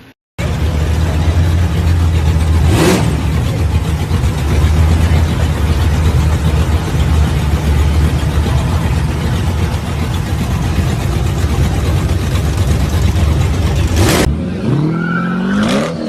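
First-generation Chevrolet Camaro's V8 engine running at a loud, steady, choppy idle. Near the end it gives way to a different car's engine, rising and falling in pitch as it drives.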